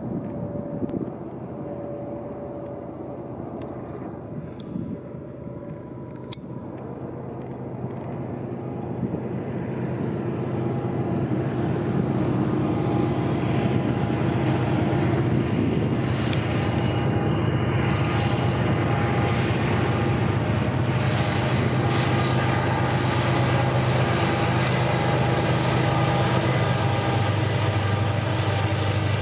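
Union Pacific diesel-electric freight locomotives approaching: their engine drone grows louder over several seconds, then holds loud and steady as the lead units pass.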